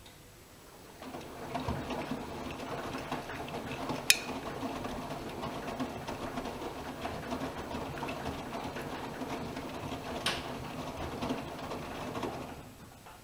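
AEG Öko-Lavamat Lavalogic 1600 washing machine tumbling its wash: the drum starts turning about a second in, laundry and water churn for about eleven seconds, then it stops. Two sharp clicks stand out partway through.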